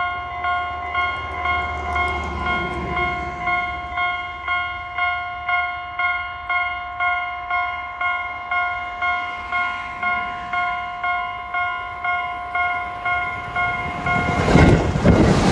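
Japanese level-crossing electronic alarm bell ringing, a clear multi-tone ding repeating about one and a half times a second. Near the end a Tobu Tojo Line train reaches the crossing and its passing noise becomes the loudest sound.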